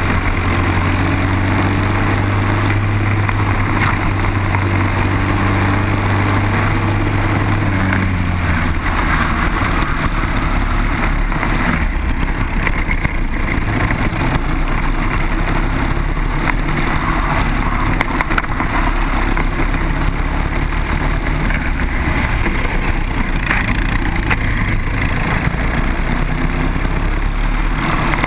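Onboard sound of a racing kart's Briggs & Stratton four-stroke engine running at speed under wind rush. The engine holds a steady note for about eight seconds, then falls away and runs on rougher through the corners.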